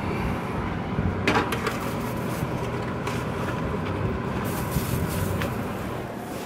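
Metal baking tray clanking and scraping onto an oven rack: a sharp clank about a second in, then a run of scrapes and clicks about four to five seconds in, over a steady hum.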